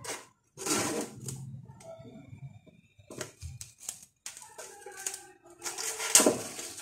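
Plastic cling film pulled off its roll and stretched over the mouth of a plastic jar, crackling and crinkling in several short bursts. The loudest burst comes near the end.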